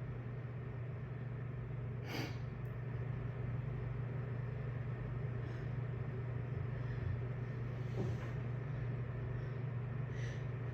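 A steady low hum, with two faint, short breaths, about two seconds in and again near the end, as a person waits for a sneeze.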